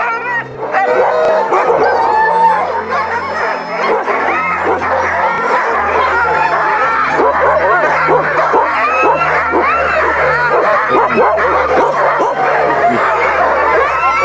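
A large pack of sled dogs yipping, whining and howling all at once, with many high calls overlapping without a break.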